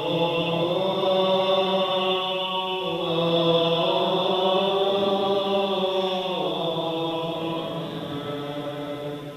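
Byzantine-rite liturgical chant sung in a low male register, slow and steady on long held notes, changing pitch about three seconds in and dropping again about six and a half seconds in.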